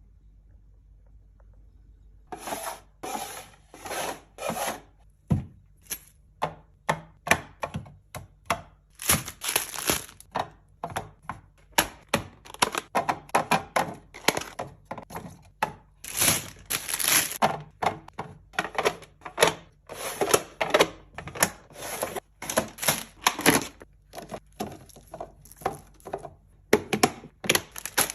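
A steady run of short, sharp knocks and taps, about two or three a second, starting about two seconds in.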